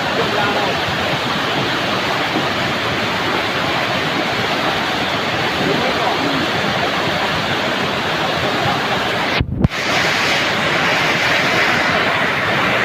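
Heavy rain falling, a steady hiss. About nine and a half seconds in, it breaks off briefly with a low thump, then resumes a little brighter.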